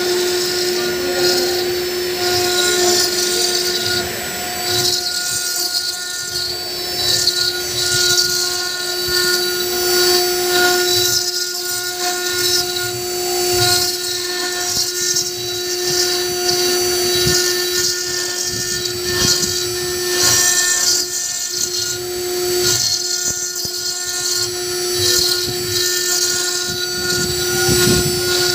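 Stone CNC router spindle whining at a steady pitch while its bit cuts a white stone slab under water coolant, with a rising and falling hiss from the cutting.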